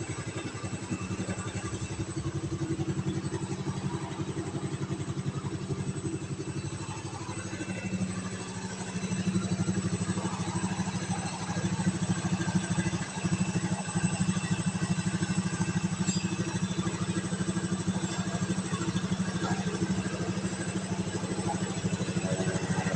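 Motorcycle engine running steadily, a little louder from about eight seconds in as the revs come up slightly. It is being run to check by ear that it runs clean without 'coughing' (stumbling or misfiring).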